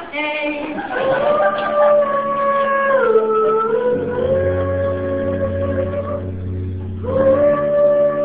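Live pop ballad music recorded on a phone: a long held melody note over steady backing notes. The melody slides down about three seconds in, climbs back, breaks off for a moment around six seconds in, and comes back.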